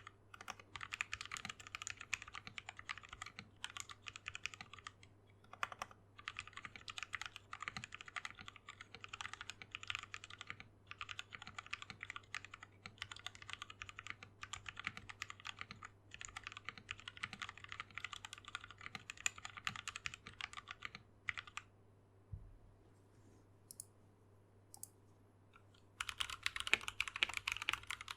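Fast continuous typing on a mechanical keyboard, a rapid run of key clicks. It stops for about four seconds roughly three quarters of the way in, then starts again louder and brighter near the end.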